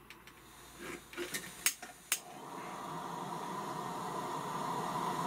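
SOTO ST-233 gas lantern being lit: two sharp ignition clicks about two seconds in, then the burner catches and runs with a steady gas hiss that slowly grows louder.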